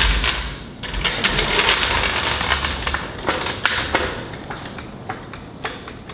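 Steel-wheeled floor jack being rolled across a concrete floor, its wheels and handle rattling and clicking for about the first four seconds, then a few scattered clicks that die away as it comes to rest.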